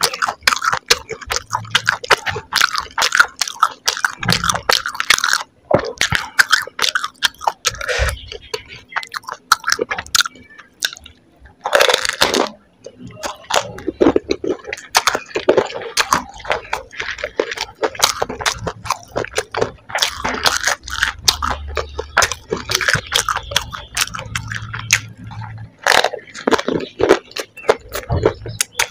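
Close-up eating sounds: crunching and chewing of noodle-topped golgappa (fried puri shells), with wet slurps as strands of spaghetti noodles are sucked into the mouth.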